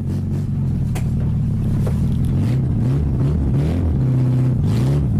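Lada Samara hatchback's four-cylinder petrol engine running on makeshift connecting-rod bearings cut from leather belt, as the car pulls away. The engine note rises and falls a few times in the second half, with a single click about a second in.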